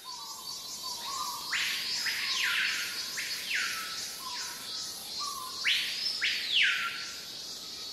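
Channel intro sound: about half a dozen raspy, wild-animal-like calls, each rising and then falling over about half a second, come in uneven groups over a faint electronic music bed.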